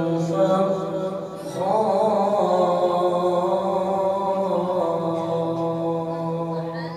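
A man reciting the Quran in long, drawn-out melodic phrases, his voice held on sustained notes, with a short breath pause about a second and a half in.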